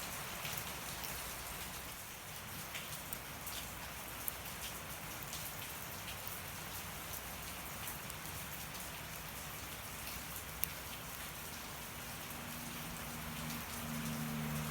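Steady rain falling, with a wood fire burning and a few sharp crackles and pops. A low steady hum comes in near the end.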